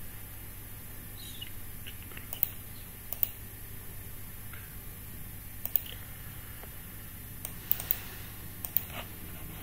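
Computer mouse clicking: about ten sharp clicks at uneven intervals, some in quick pairs, over a low steady hum.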